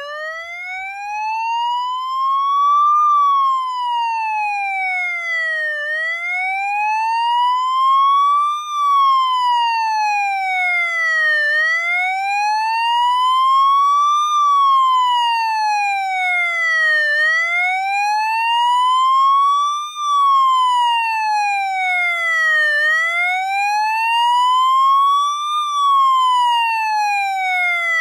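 Police motorcycle siren wailing: a single tone that rises for about three seconds and falls for about three seconds, repeating about five times.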